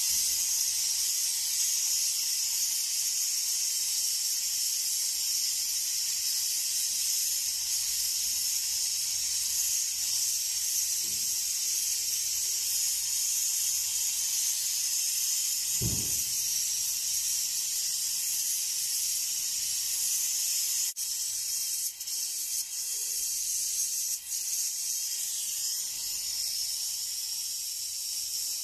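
Brazing torch flame hissing steadily while a copper-to-aluminium air-conditioner refrigerant pipe joint is brazed, with a brief low bump about halfway through and a few faint clicks later on.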